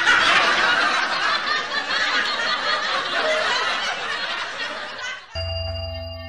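Canned laughter: a crowd laughing sound effect that cuts off abruptly about five seconds in. A sustained music chord with a low hum then starts near the end.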